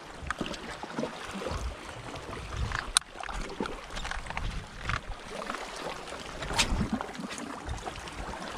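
Small waves lapping and splashing at the water's edge, with gusts of wind on the microphone and one sharp click about three seconds in.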